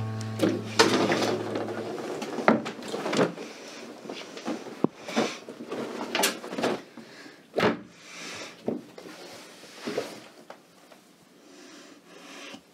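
Someone rummaging through a wardrobe: an irregular string of knocks, bangs and rustles of clothes and doors, thinning out near the end. Background music with steady low tones fades out about two seconds in.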